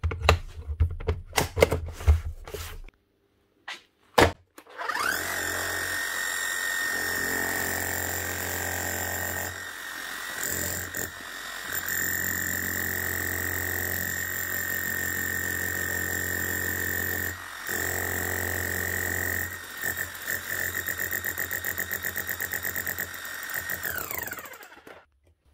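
Makita HR0870C hammer, freshly rebuilt with a new armature and brushes, test-running after a few handling clicks. Its motor whines over the rapid knocking of the hammer mechanism, which is a little light at first while the new grease works its way around, then comes on at full strength. The run has a couple of brief stops and ends with the motor winding down.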